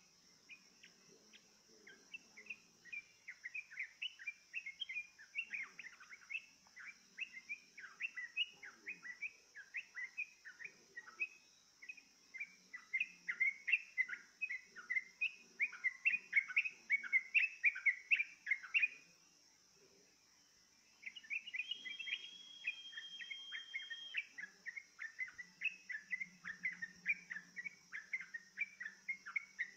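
Sooty-headed bulbul (trucukan) song: quick runs of short chirping notes, broken by a pause of about two seconds past the middle. After the pause comes one held high whistle lasting about two seconds, then the chirping resumes. A steady high hiss lies underneath.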